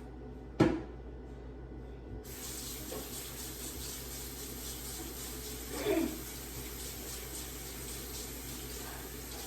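A sharp knock, then a kitchen tap is turned on about two seconds in and runs steadily.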